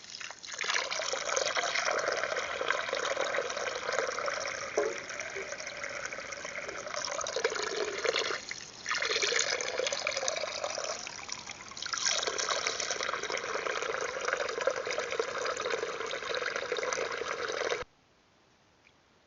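Water splashing and trickling continuously in a garden water trough, with two brief lulls, then cutting off suddenly near the end.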